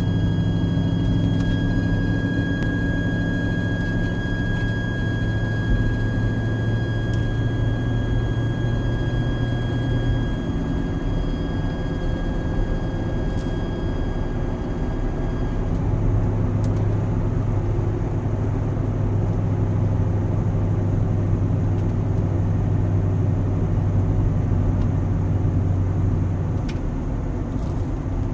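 Mercedes SLK 55 AMG squealing while driving: a steady high-pitched squeal over the low drone of the car, which stops about halfway through. The squeal comes when the car is steered slightly left, and its cause is unknown; the wheel bearings and the front and rear brakes are already new.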